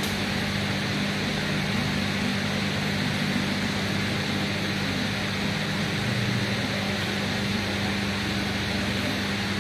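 Steady low hum with an even hiss over it: constant room noise from a running machine, unchanging throughout.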